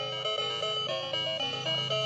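Bright electronic jingle: a fast melody of bell-like notes hopping quickly back and forth, over a steady low hum.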